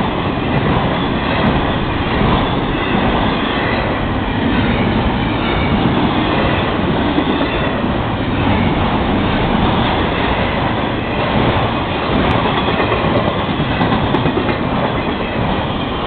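Double-stack container well cars of a freight train rolling past close by: a loud, steady rumble and rattle of steel wheels on the rails that does not let up.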